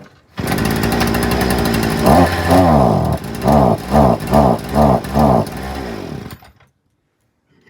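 Hyundai multi-tool's two-stroke engine running, then revved in about five short throttle blips; each time the revs rise briefly and sag back instead of climbing: the engine is bogging down from a carburettor mixture setting. The sound stops abruptly about six seconds in.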